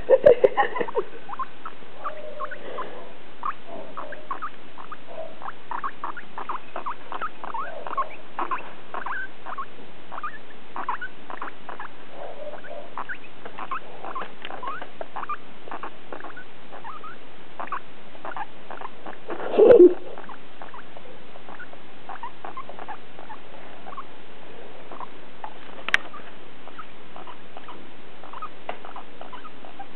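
Guinea pig making rapid, irregular short clicking sounds, with one louder brief sound about twenty seconds in.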